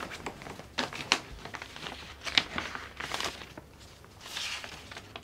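Paper envelope being opened and handled, the letter inside drawn out: a series of short crinkling and rustling paper sounds.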